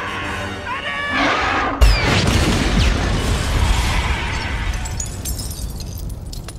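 Film soundtrack: a shrill, wavering scream, then about two seconds in a pumpkin bomb goes off in a loud, deep explosion. A long rumbling, crackling tail slowly dies away.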